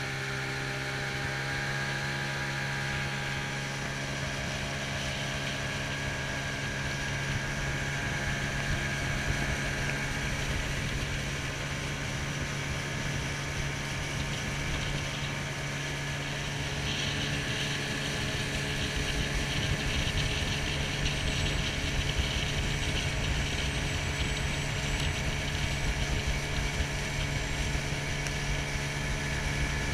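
Minn Kota electric trolling motor running steadily as it pushes a small boat, a constant hum made of several steady tones. Wind rumbles on the microphone, heavier in the second half.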